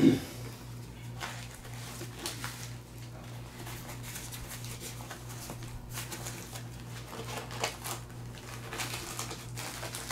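Rustling and crinkling of plastic packaging and nylon as items are dug out of a backpack, with scattered small clicks and a thump at the very start, over a steady low hum.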